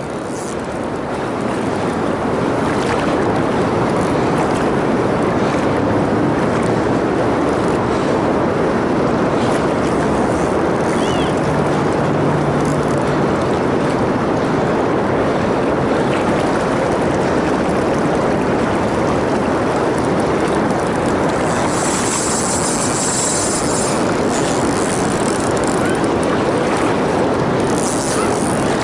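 Steady rushing of fast, choppy river water below a low dam. Around twenty seconds in, and again near the end, a brighter hiss comes in.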